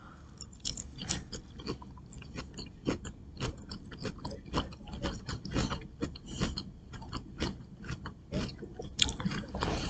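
A person chewing fruit close to the microphone: a string of faint, irregular short clicks and mouth noises, several a second.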